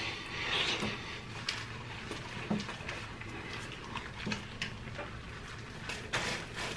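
Close-miked eating sounds: chewing and wet mouth clicks and smacks as sandwiches and fried chicken are eaten, with a louder noisy burst near the end.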